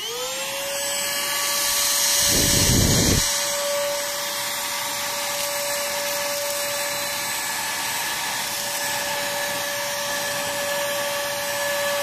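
Cordless battery vacuum cleaner (22.2 V, 120 W) motor reaching full speed in the first moment, then running with a steady high whine over an airflow rush. About two seconds in comes a brief louder, lower rush, as debris is sucked up through the bare intake tube.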